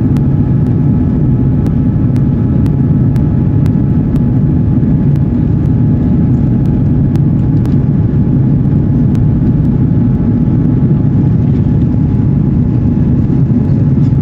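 Airbus A330-300 cabin noise in the climb after takeoff: the steady, loud, low roar of its Rolls-Royce Trent 700 engines and the airflow, with a faint steady whine above it.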